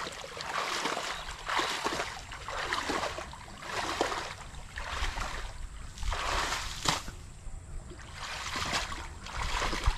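Water in a shallow fishpond splashing and sloshing in uneven strokes about once a second, from hands or tools working in it while the pond is being cleared.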